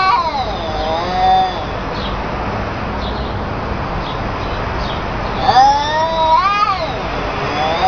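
Cats yowling at each other in a fighting standoff: long, wavering, drawn-out howls. A short one and a lower one come in the first second and a half, then a long yowl rises and falls about two-thirds of the way through, and another begins at the end.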